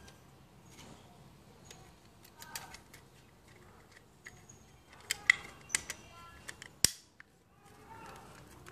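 Hard plastic parts of a toy revolver clicking and snapping as they are handled and fitted together: scattered light clicks, with a cluster of louder clicks past the middle and one sharp snap near the end.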